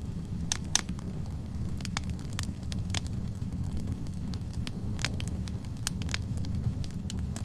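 Wood fire burning in a fireplace: a steady low rumble of the flames with irregular sharp crackles and pops from the logs, a few of them louder than the rest.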